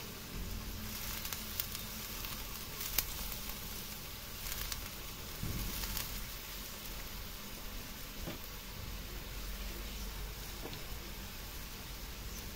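Squid sizzling in its sauce in a steel wok over a wood fire, a steady hiss with a few sharp crackles in the first half.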